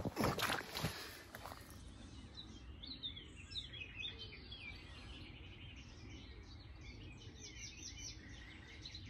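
Small birds chirping and twittering, faint, over a low steady background noise. A few brief handling noises come in the first second or so.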